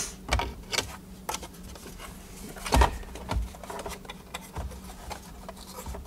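Scattered clicks and knocks of hard plastic dashboard trim as the Mazda MX-5 Miata's gauge cluster top cover is worked loose and lifted off, with the loudest knock a little before the middle.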